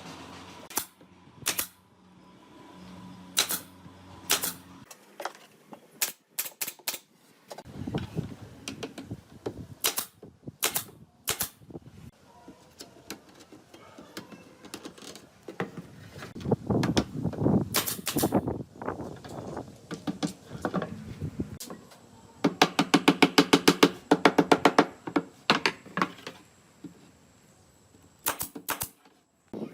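Workshop handwork on wood: a string of sharp knocks and clicks, with a denser rattling stretch midway and a rapid, fast-repeating rattle lasting about three seconds later on.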